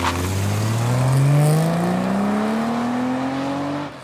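Jaguar 5.3-litre V12 in an XJ saloon accelerating away, its engine note rising steadily in pitch for nearly four seconds and then cutting off suddenly near the end.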